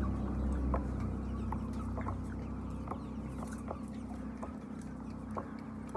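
Chickens clucking, with many short, separate calls, over a steady low hum that slowly fades.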